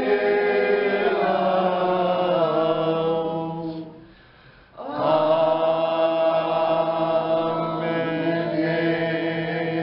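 A small group of people singing together in unison in long held phrases, with a brief break about four seconds in before the next phrase.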